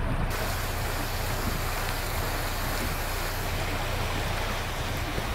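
Storm runoff rushing along a street gutter in a steady, even rush of water.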